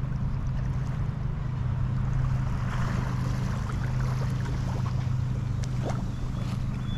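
A steady low engine-like hum, with a haze of wind and surf noise over it.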